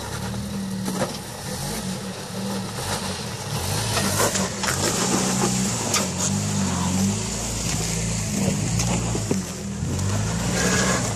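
Jeep Wrangler engine running at crawling speed over rock, its note rising and falling in steps as the throttle is worked, with a few sharp knocks.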